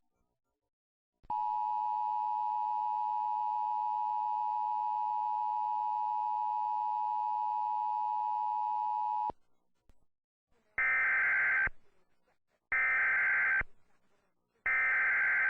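EAS attention signal: a steady two-note tone held for about eight seconds. It cuts off and is followed by three short screeching bursts of SAME digital data about two seconds apart, the last running to the end.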